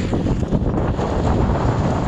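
Steady low rumble of a concrete-pouring machine running, mixed with wind buffeting the microphone.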